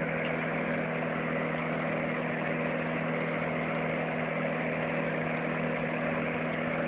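Fan heater blowing hot air: a steady rush of air with a low, even hum.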